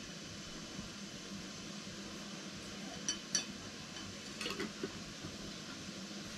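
A glass jar and teapot clinking lightly as they are handled: two small clusters of sharp clinks, about three seconds in and again about a second later, over a faint steady hiss.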